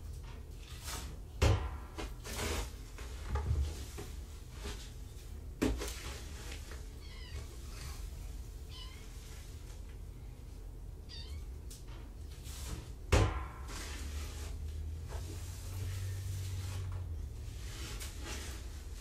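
Cats meowing: two loud meows, about one and a half seconds in and again about thirteen seconds in, with fainter high chirping mews between them. A few soft knocks come through as well.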